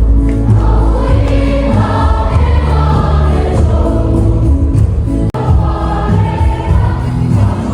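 A choir singing to instrumental accompaniment over a strong, sustained bass, gospel in style. The sound cuts out for an instant about five seconds in, then carries on.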